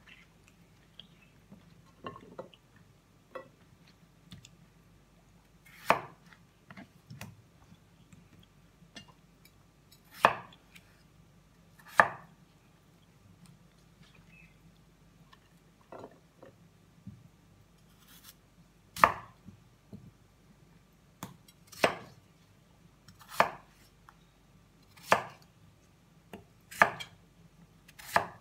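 Chef's knife cutting peeled potatoes into small cubes on a wooden cutting board: separate knocks of the blade striking the board, a few seconds apart at first and coming every second or two in the second half.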